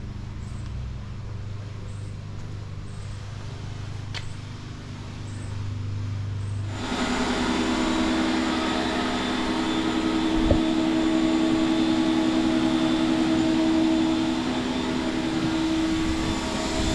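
A machine running: a low steady hum, then about seven seconds in a louder, steady mechanical drone with a hissing edge starts abruptly and holds.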